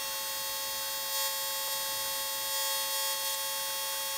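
Steady electrical whine of several held tones from shop equipment, with one light click about one and a half seconds in; the air die grinder is not running.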